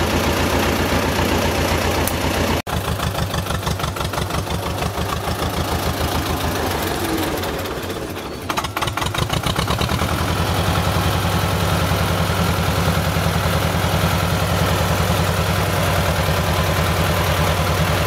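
Wheeled tractor's engine running with a steady low beat; it dips briefly, then from about halfway it is louder and fuller as the tractor comes up close.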